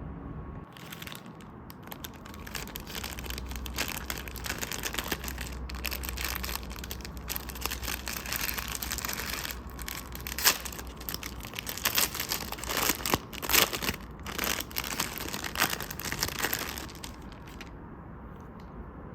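Plastic food packaging crinkling and crackling as it is handled, with a few sharper, louder crackles between about ten and sixteen seconds in.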